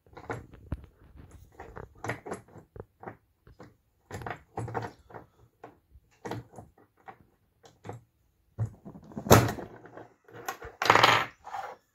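Small metal clicks and clacks as steel crimping bushings and a plastic shotgun hull are fitted onto a UPS-7 shell-reloading press, with a sharp knock about nine seconds in and a louder noise lasting about half a second near the end.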